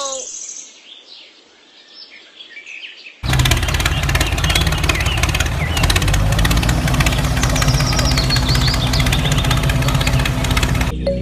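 Birds chirping faintly, then about three seconds in a tractor engine starts up loud and runs steadily with a fast even beat, birdsong continuing over it; it stops just before the end.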